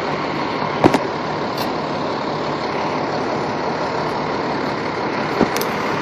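Fire engine's diesel engine running steadily as the pumper moves slowly, with two sharp clicks, one about a second in and one near the end.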